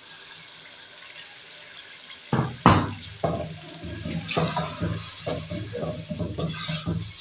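Soaked urad dal frying in oil and tomato masala in an aluminium pot: a steady sizzle. From about two seconds in, a wooden spoon scrapes and knocks irregularly against the pot as the dal is stirred, with one sharp knock just before the third second.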